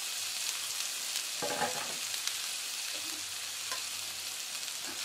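Chopped shallots, garlic and lemongrass sizzling steadily in hot oil in a stainless steel pan as they are stirred, with a few light clicks.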